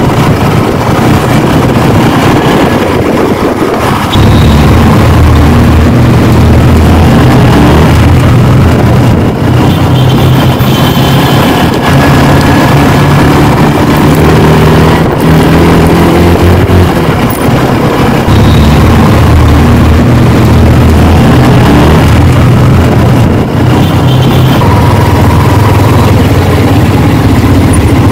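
Yamaha R15 sport bike's single-cylinder engine running on the move, its note rising and falling with the throttle and louder from about four seconds in, under constant wind rush on the microphone.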